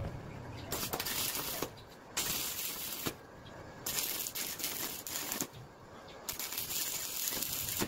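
Electric arc welding on steel tubing: the arc crackles and hisses in four bursts of about a second each, with short pauses between them as the welds are laid in short runs.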